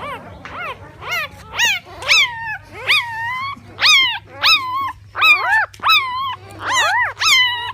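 Newborn puppies, three days old, whimpering and yelping: a run of short high-pitched cries, each rising then dropping, one or two a second, several pups crying over each other later on.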